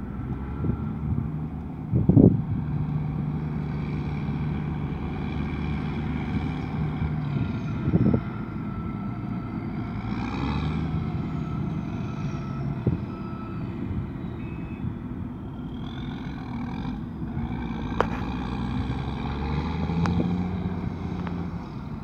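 Diesel engines of a Komatsu D65 crawler dozer and articulated dump trucks working, a steady low drone, with a few loud thumps, one about two seconds in and another about eight seconds in.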